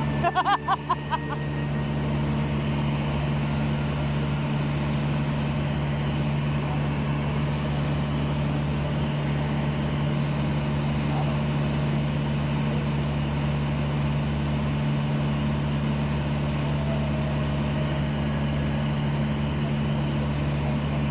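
Light aircraft's engine and propeller droning steadily in level flight, heard inside the cabin, with a brief voice in the first second.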